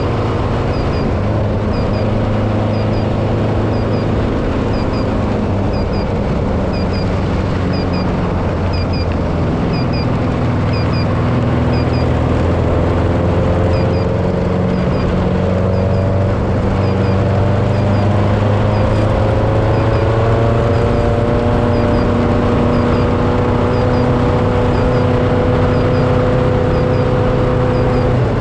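Off-road race car's engine running at speed, its pitch slowly rising and falling, over a steady rush of driving noise. A high double chirp repeats about once a second throughout.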